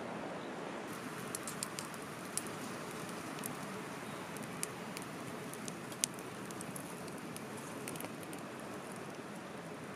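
Wood fire crackling in a small metal twig stove: scattered sharp snaps from about a second in, the loudest about six seconds in, over a steady rush of wind.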